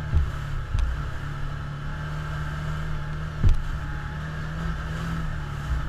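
Can-Am Commander side-by-side's engine running steadily while driving a rough trail, with a few thumps as the machine jolts over bumps, the loudest about three and a half seconds in.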